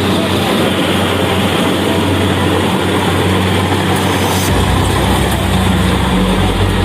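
Engine of rice-harvesting machinery running steadily with a broad mechanical din; a deeper low hum joins about two-thirds of the way through.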